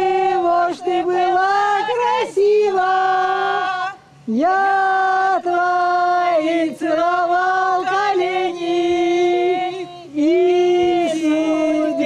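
A group of people singing a song together without accompaniment, in long held notes, pausing briefly for breath about four and ten seconds in.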